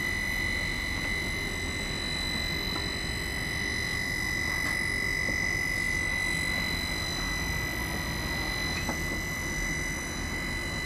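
Handheld roof seam welding machine running on a standing-seam metal roof: a steady high-pitched whine over a low rumble.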